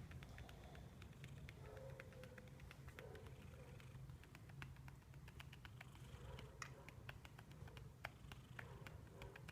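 Faint, low rumbling snore of a resting cat, with soft breaths every second or two and scattered light clicks.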